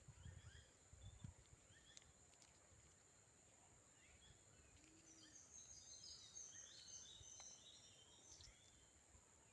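Near silence in the open air: a few low rumbles in the first second, then a cluster of faint high bird chirps about five to eight seconds in, over a steady thin high whine.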